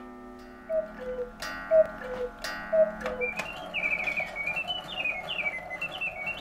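Black Forest cuckoo clock calling "cuckoo" three times, a falling two-note call about once a second, with sharp clicks between the calls. About three seconds in, a quick, high music-box tune starts up and plays on.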